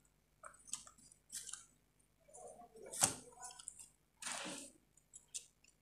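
Handling noises as a wooden chassis rail is fitted by hand against a plastic RC crawler chassis: scattered light rubs and knocks, a sharp click about three seconds in, the loudest sound, and a short scrape about a second later.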